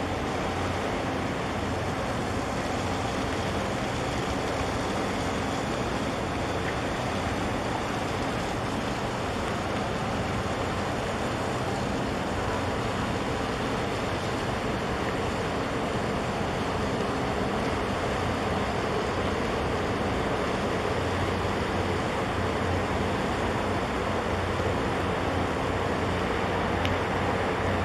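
A large container ship passing close, its engines giving a steady low rumble with a faint hum under a constant wash of noise.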